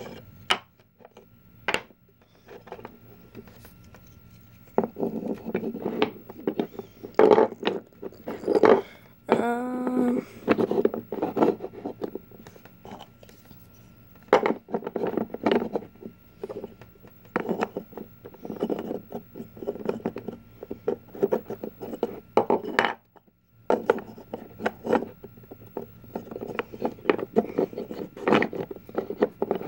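Wooden burr puzzle pieces being handled and fitted together: many short clicks and knocks of wood on wood, with rubbing and scraping as pieces slide against each other. A brief hummed voice sound comes about ten seconds in.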